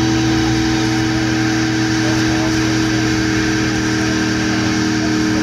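A car's engine held at steady high revs in a burnout, its rear tyres spinning and smoking on the pavement. The engine note stays at one pitch throughout.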